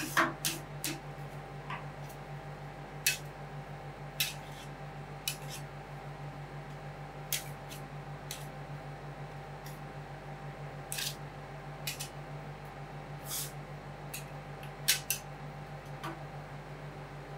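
Metal spatulas tapping and scraping on a steel ice-cream cold plate: scattered sharp clicks at irregular intervals, over a steady low hum.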